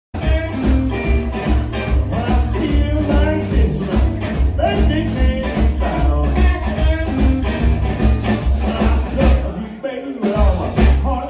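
Live blues band playing an upbeat, driving groove with a heavy bass line and a steady drum beat under bending melodic lines. The music starts abruptly, and the bass drops out briefly near the end.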